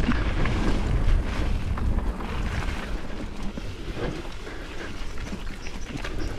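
Mountain bike ridden along a dirt trail: wind rushing over the microphone and tyres rolling on dirt, with scattered sharp clicks and rattles from the bike. The rush eases after about two seconds.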